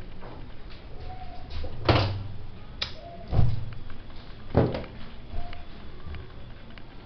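Hard objects knocking and clunking about four times in a few seconds over a low steady hum, the loudest clunk about halfway through.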